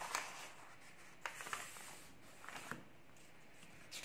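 Faint rustling and a few light taps of paper sheets being handled on a clipboard, in short scattered bursts.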